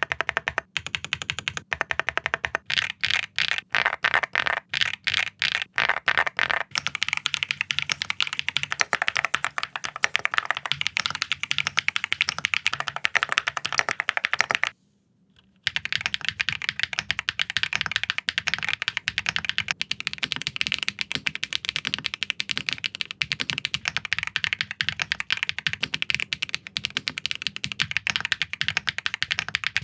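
Fast, continuous typing on a mechanical keyboard: a dense clatter of key strokes, broken by about a second of silence near the middle before typing resumes, likely on a second board.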